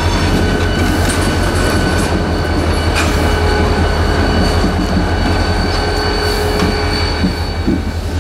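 Norfolk Southern diesel-electric locomotive passing close by at low speed, its engine running with a loud, steady low rumble. A thin, steady high-pitched squeal from the wheels on the rail runs over it, with an occasional knock.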